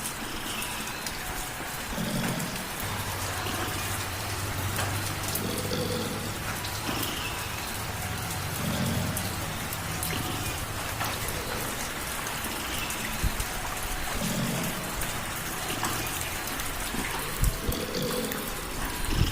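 Light rain falling steadily with scattered sharp drop ticks, and a cat purring low underneath in slow swells that come every few seconds.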